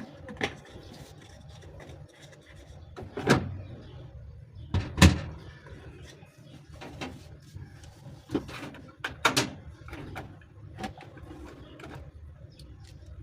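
Scattered knocks and clunks, about seven in all, the loudest about five seconds in, from laundry being handled and loaded at a front-load washing machine.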